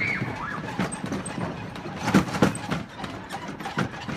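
Footsteps on the wooden plank deck of a suspension footbridge, an uneven series of knocks as children walk and run across it, loudest a little past halfway.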